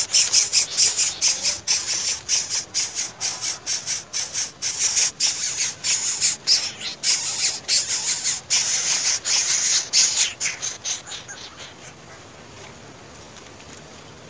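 Greater coucal nestlings calling in a rapid run of short, hissy rasps, several a second, which stop about eleven seconds in.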